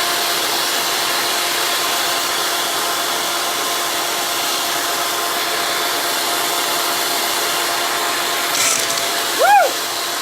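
Electric motor of a ring-cutting machine running steadily with a continuous whine. A dog barks once near the end.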